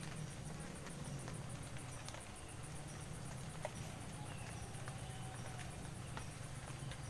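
Insects chirping in a steady, rapid, high-pitched pulsing trill, with a few scattered light ticks.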